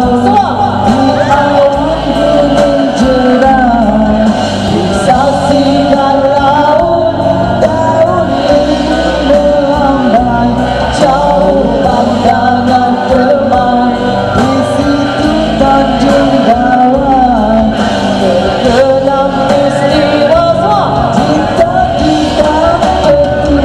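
A woman sings an 1980s Malay rock song live through a microphone and PA, over a loud karaoke backing track.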